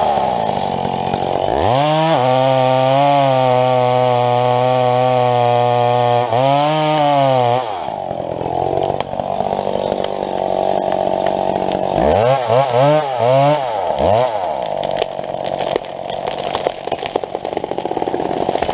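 Two-stroke chainsaw running, revved up about two seconds in and held at high speed for several seconds before dropping back, then blipped several times in quick succession about twelve seconds in.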